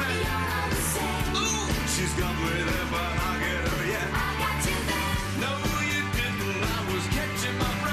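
Upbeat rock-and-roll band music played live, with a steady drum beat, bass and a singing voice.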